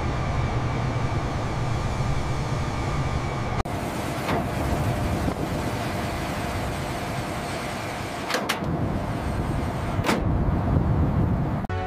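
Steady airliner flight noise, then a landing gear retracting. A steady mechanical whine runs under a few clicks, and a sharp clunk comes about ten seconds in as the gear bay doors shut.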